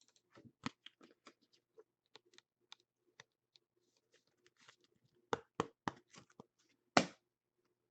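Trading cards and their plastic packaging being handled at a table: scattered soft clicks and crinkles, then three quick sharper taps about five seconds in and a louder single snap near the end.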